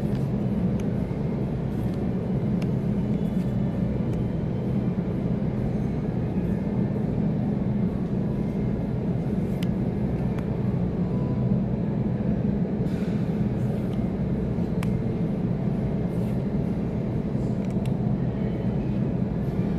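Steady low droning hum, with a few faint light clicks of trading cards being handled and flipped.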